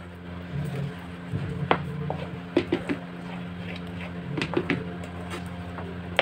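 Wooden spatula stirring a thick paneer mixture in a pan, with scraping and a few sharp taps against the pan, over a steady low hum.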